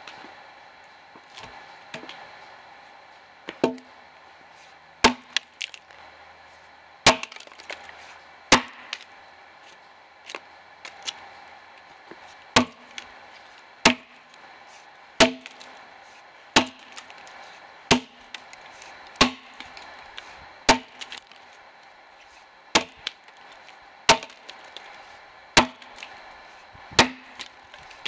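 Axe chopping into a dead ash log with steady, repeated blows, each a sharp crack of steel into hardwood followed by a short low thud. The strokes start light and irregular, then settle into a rhythm of about one every second and a half.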